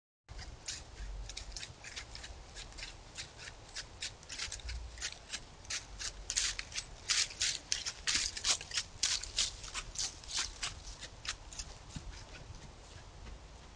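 Close crunching from a whitetail deer at a trail camera: a run of irregular crisp crunches that comes thickest and loudest in the middle.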